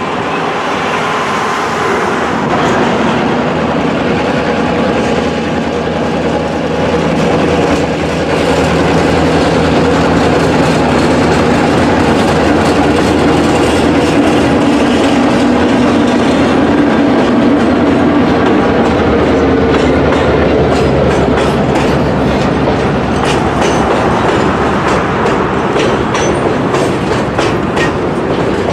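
Freight train passing, led by an EMD GP38-2 diesel locomotive whose 16-cylinder two-stroke engine runs loudest near the middle as it goes by. Boxcars follow, rolling past with a clickety-clack of wheels over rail joints that grows more frequent toward the end.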